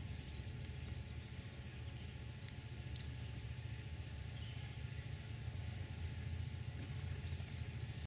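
Steady low outdoor background rumble, with one sharp, short click about three seconds in.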